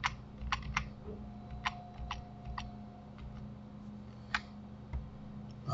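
Scattered single clicks of a computer mouse and keyboard, about seven spread over a few seconds, over a low steady hum.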